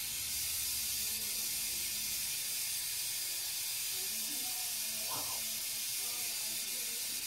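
Steady hiss of steam escaping from a steam radiator's vent valve, which is leaking and defective: the valve keeps venting steam instead of closing.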